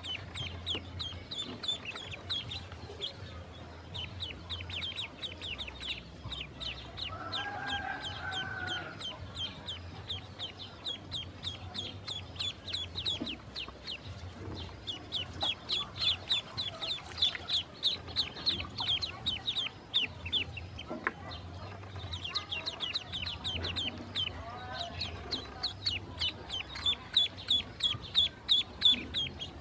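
Ducklings peeping: rapid runs of high, falling peeps, several a second, broken by short pauses. A lower, drawn-out call sounds briefly about seven seconds in.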